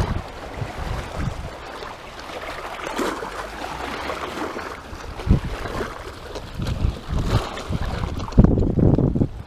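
Wind buffeting the microphone in uneven low rumbling gusts, strongest near the end.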